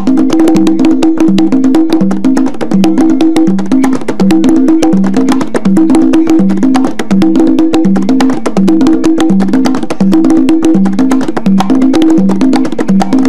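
Quinto conga played by hand in a Rumba Columbia groove: quick open tones and sharp slaps. Underneath run a steady, repeating pattern of two lower drum pitches and rapid wooden clicks.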